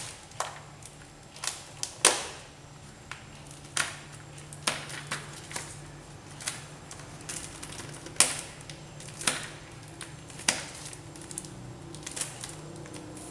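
A parcel being opened by hand: irregular sharp clicks and snaps of packaging being handled and pulled apart, one or two a second, over a low steady hum.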